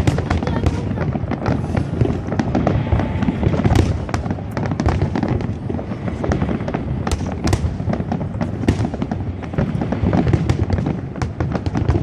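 Fireworks going off in a dense, continuous barrage: many sharp bangs and crackles overlapping, with a heavy low rumble underneath.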